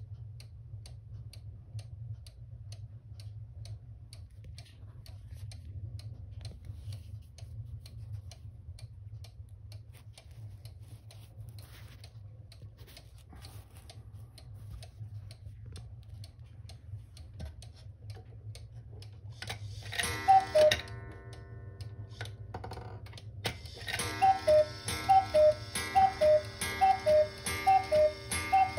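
Swiss Lötscher cuckoo clock ticking steadily. About twenty seconds in, the cuckoo gives one two-note call from its bellows pipes; after a short pause it calls again and again, about once a second, striking the hour.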